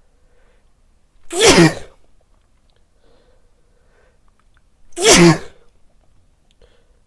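A man sneezing loudly twice, about three and a half seconds apart.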